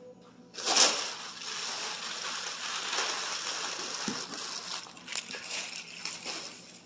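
Loose plastic wrapping being pulled off and bunched up by hand: a sudden loud rustle just under a second in, then continuous crinkling that fades near the end.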